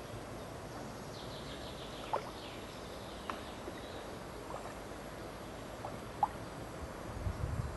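Steady outdoor ambience of wind and water at a lake, with a few short bird chirps scattered through it.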